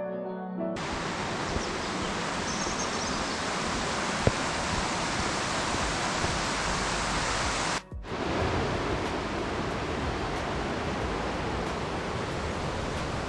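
Fast-flowing East Lyn River water rushing over rocks, a steady, even noise with no let-up apart from a brief dropout a little past halfway.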